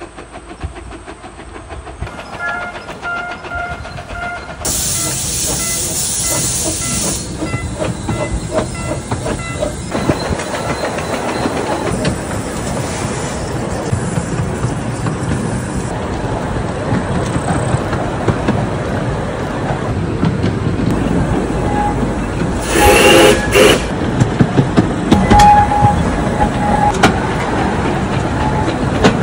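British-built 15-inch narrow-gauge steam locomotive and its carriages running, heard from on board: steady hiss of steam and wheels clicking over the rail joints. There is a louder burst of steam hiss about five seconds in, and a loud steam whistle blast about three-quarters of the way through.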